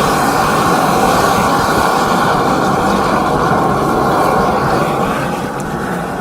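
High-pressure drain-jetting machine running steadily, washing out a kitchen drain pipe; the loud noise eases slightly about five seconds in.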